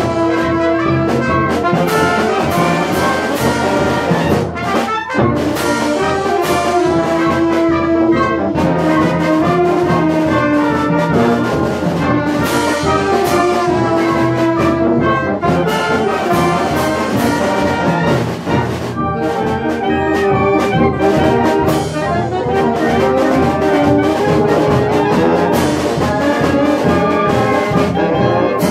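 A community concert band playing a march live, with trombones and trumpets over clarinets and saxophones.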